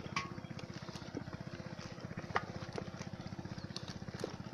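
Small engine of a water pump running steadily with an even, rapid low beat. A few light knocks sound over it.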